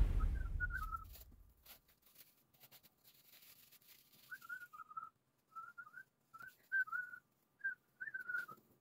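The tail of background music dies away in the first second. Then faint, high, wavering whistled chirps come in short runs, several times over the second half.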